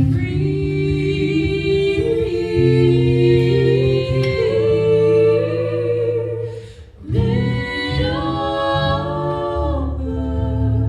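Folk song being sung: a voice holding long, slowly changing notes over low sustained tones, with a brief pause about seven seconds in.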